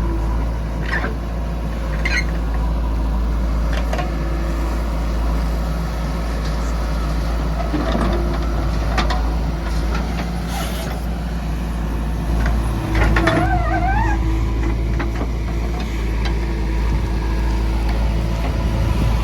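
Heavy diesel engines of a JCB 3DX backhoe loader and a Tata truck running steadily while murrum is loaded, with scattered knocks and clatters. A brief wavering high-pitched cry sounds about thirteen seconds in.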